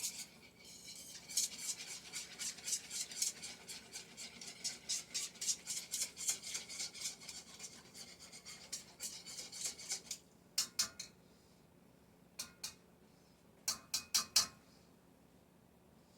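A utensil stirring and scraping across the bottom of a wok of thin, unthickened Alfredo sauce. It makes quick rhythmic strokes, about two to three a second, for most of ten seconds, then stops for a few separate strokes near the end.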